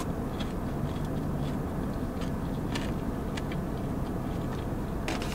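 Quiet chewing of a fried chicken finger with faint, scattered mouth clicks, over a steady low hum inside a car.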